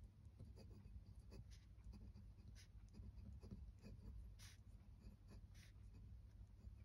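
Faint scratching of a glass dip pen's nib on smooth Bristol board during handwriting: short separate strokes about a second apart, over a low steady hum.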